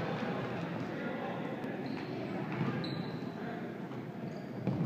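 Voices of players and spectators calling out and chattering in an echoing gymnasium during a futsal game, with the occasional thud of the ball.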